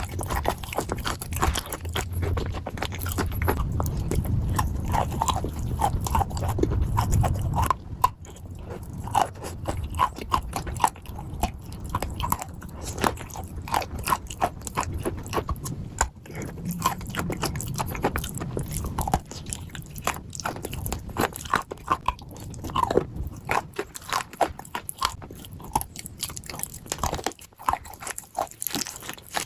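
A person biting and chewing crunchy chunks of clay close to the microphone, with many irregular sharp crunches throughout.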